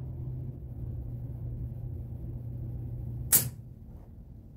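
A clock mainspring in a 1900 Seth Thomas mantel clock movement suddenly lets go with one loud, sharp pop about three seconds in. Hardened grease and dirt had made the spring stick to itself until it gave. A steady low hum runs underneath.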